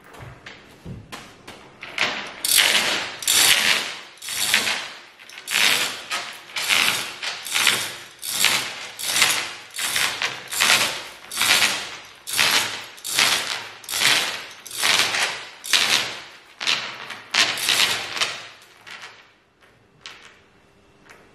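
Manual chain hoist being hauled to lift a fibreglass moulding: a rattling rasp with each pull of the hand chain, about one and a half pulls a second. It starts about two seconds in and stops shortly before the end.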